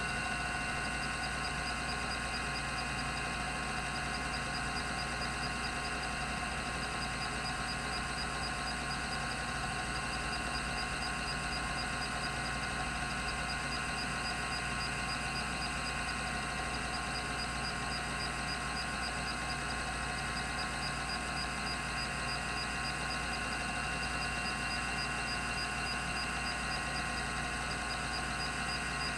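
Rodime RO352 3.5-inch hard drive running, its two platters spinning at 3600 RPM, giving a steady hum with several constant high tones and no seek clicks.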